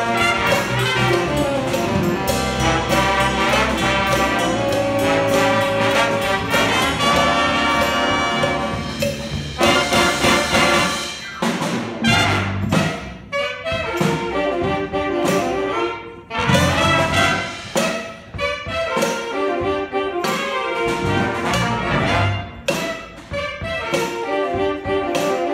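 A jazz big band playing: trumpets, trombones and saxophones over electric guitar and bass. A dense full-band passage gives way, about twelve seconds in, to short punched ensemble hits with brief gaps between them.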